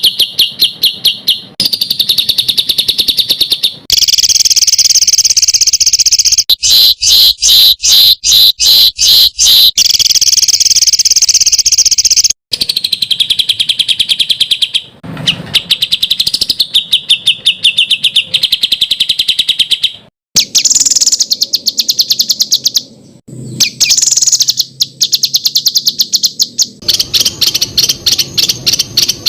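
Songbird calls in fast, harsh rapid-fire series ('tembakan kasar'), as used in a cagebird song-training recording. Spliced phrases of quick repeated high notes and chatter, each cutting off abruptly before the next starts.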